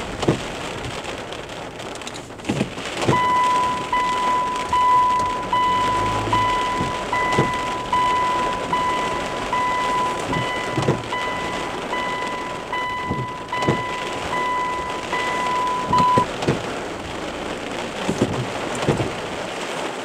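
Heavy rain beating on the car, with scattered dull knocks. From about three seconds in to about sixteen seconds, an electronic beep repeats at an even pace through the rain.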